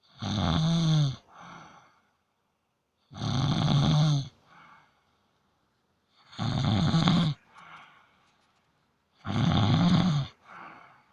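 A sleeping person snoring: four loud snores about three seconds apart, each followed by a shorter, softer breath.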